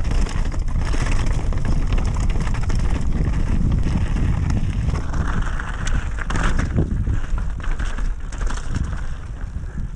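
Wind buffeting the GoPro's microphone on a mountain-bike descent, mixed with the rattle and knocks of the bike and tyres over rough trail.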